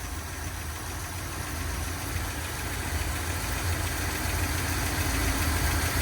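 1962 Dodge D200 pickup's carbureted engine idling steadily while it warms up toward operating temperature, growing gradually louder.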